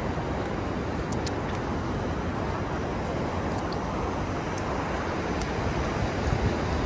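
Steady low rumble of ocean surf mixed with wind buffeting the microphone, with a few faint high clicks.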